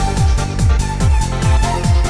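Electronic dance music with a fast, steady kick-drum beat under held synth tones.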